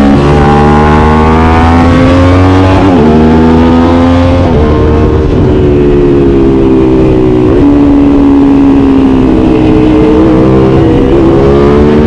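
Aprilia RS 660 parallel-twin engine through an SC Project CR-T exhaust, heard from on board while riding. The pitch climbs with speed, with gear changes about three seconds in and again around four and a half and seven and a half seconds. After that the engine holds and eases off, then builds again near the end.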